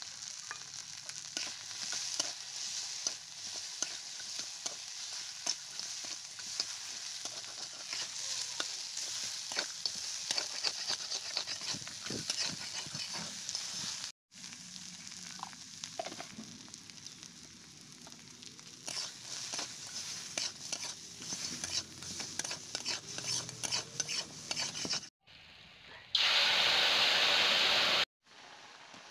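Crab pieces sizzling in hot oil in an iron wok while a metal spatula stirs and scrapes them, with many sharp clicks of the spatula against the pan. Near the end, water poured into the hot wok gives a much louder hiss for about two seconds.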